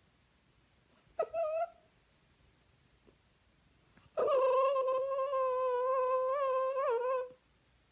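Small dog whining: a brief whine about a second in, then one long, steady, high whine lasting about three seconds from about halfway through. The whining is jealousy, a bid for the affection the cat is getting.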